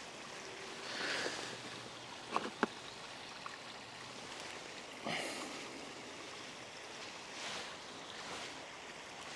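Faint riverbank ambience with soft rustles and light clicks of an angler handling bread bait and tackle at his side tray. Two sharp clicks a little over two seconds in are the loudest sounds.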